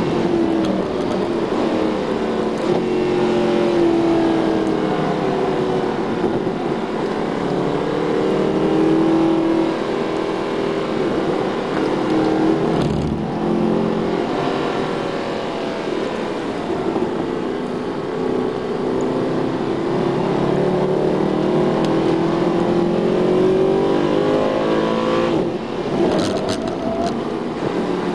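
Mercedes SLS AMG's naturally aspirated V8 running hard at track pace, heard from inside the cabin, its pitch rising and falling through acceleration, braking and gear changes. A short low thump comes about halfway through.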